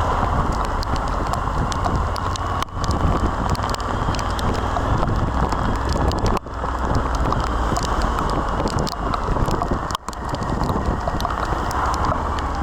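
Rain and wind noise while riding a Suzuki V-Strom 1050XT motorcycle: a steady low rumble of wind over the microphone, with raindrops ticking against it. The level dips sharply three times, for an instant each.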